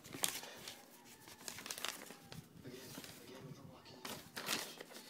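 Crinkling and rustling of cardboard and packing material as a shipping box is handled and opened, in irregular short bursts, the loudest about four and a half seconds in.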